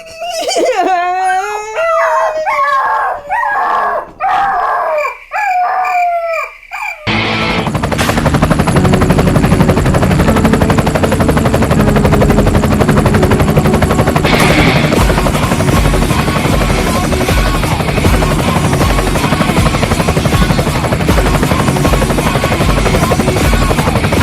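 A long, wavering howling cry rising and falling in pitch for about seven seconds, then loud, dense music takes over.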